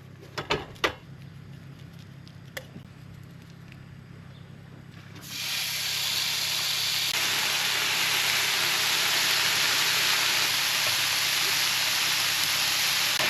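A few knocks of cooking gear, then food begins sizzling in a hot pan about five seconds in, a steady frying hiss that keeps going.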